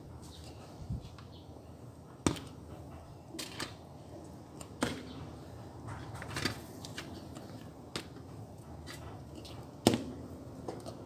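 A few separate sharp knocks and clicks over a low steady background, the loudest about two seconds in and again near the end.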